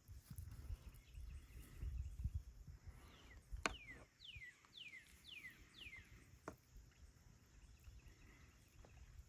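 A bird calling: a quick series of five whistled notes, each sliding downward in pitch. A low rumble comes before it, and a sharp click sounds just before the calls and again shortly after them.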